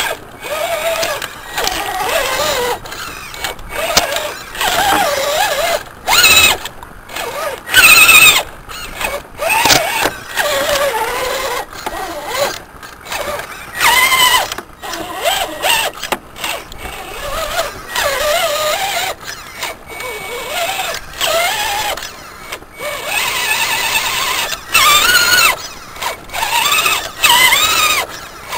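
Electric motor and gearbox of a scale RC crawler truck whining as it is driven through mud. The pitch rises and falls with the throttle, in stop-start bursts with short breaks between them.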